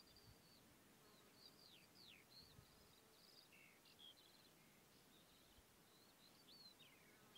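Faint bird song: a string of short chirps and quick falling whistles over near silence.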